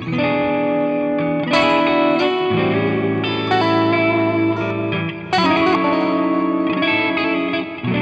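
Bacchus Universe Series BST-2-RSM Stratocaster-style electric guitar played through a Nux MG-30 multi-effects modeler, ringing chords and melodic single notes. New chords are struck about a second and a half in, again at two and a half seconds, and just past five seconds.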